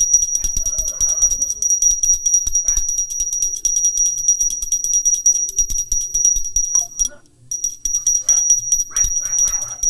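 Pooja bell rung rapidly and continuously, a dense high-pitched ringing that breaks off briefly about seven seconds in and then resumes.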